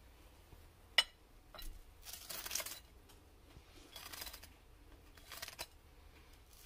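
A table knife scraping a green spread across a slice of dry toast, in three short scratchy strokes. One sharp click comes about a second in, before the first stroke.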